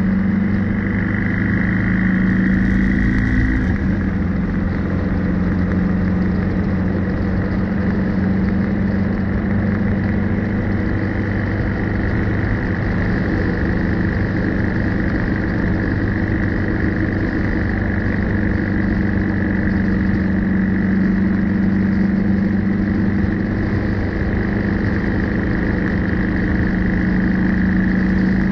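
BMW R1250GS Adventure's boxer-twin engine running as the motorcycle rides along at road speed, mixed with steady wind and road noise on the front-mounted camera's microphone. The engine note shifts about four seconds in, then holds steady.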